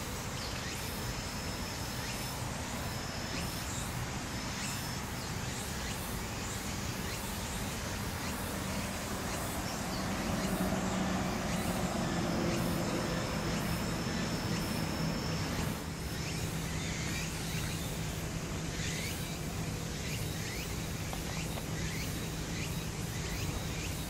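Outdoor park background: a steady hum of distant traffic, swelling louder in the middle and dropping abruptly about two thirds of the way through. A thin, high, steady whine comes and goes in stretches of a second or more.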